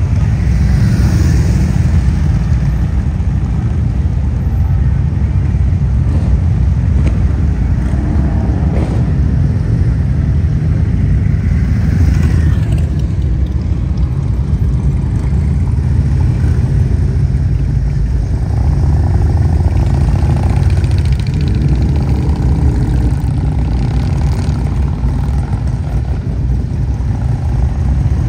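Motorcycle engines running in a steady, loud low rumble.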